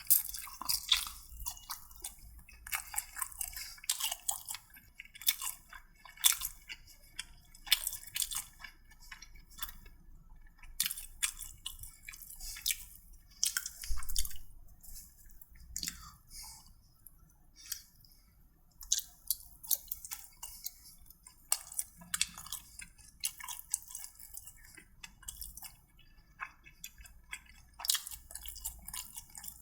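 Close-miked chewing: a person eating with a run of quick, wet mouth clicks and smacks, several a second.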